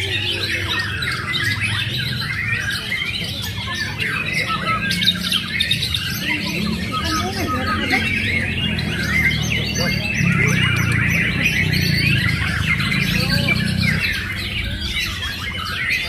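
Many caged white-rumped shamas (murai batu) singing at once during judging, a dense, overlapping chorus of loud whistles and chirps. A low background murmur runs underneath.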